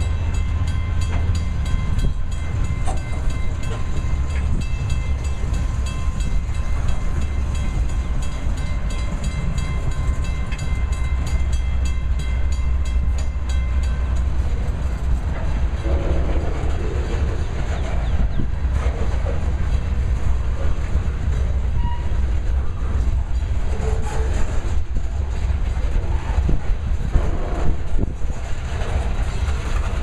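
Freight train cars rolling past at speed: a steady low rumble of steel wheels on rail, with clacking over the rail joints. A high metallic ringing runs through the first half and stops about halfway through.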